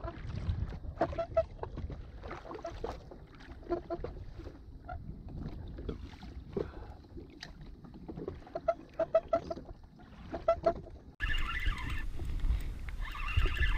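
Small waves lapping and slapping against the hull of an anchored jet ski, full of little plops and clicks. About 11 seconds in, the sound steps up abruptly to a louder rush of wind and water.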